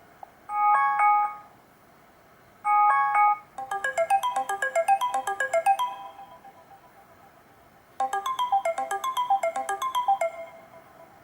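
Built-in ringtone of a Black Fox B5 BMM531A phone: two short held chords, then a quick melody of short bright notes, which plays again after a pause of about two seconds.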